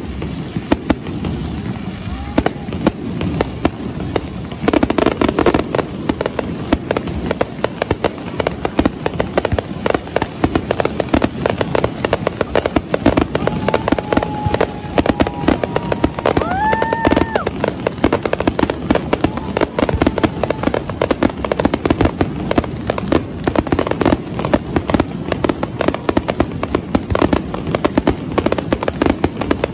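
Aerial fireworks bursting in a dense, continuous barrage of rapid bangs and crackles, growing louder about five seconds in.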